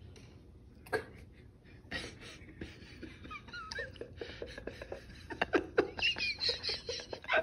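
A baby's faint squeaks and short babbling sounds, with a few small clicks, getting louder and busier near the end.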